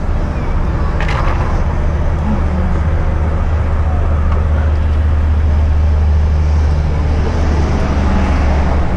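Motorcycle riding noise heard from a helmet-mounted camera: a steady low rumble of engine and wind as the bike rolls slowly along, with one sharp click about a second in.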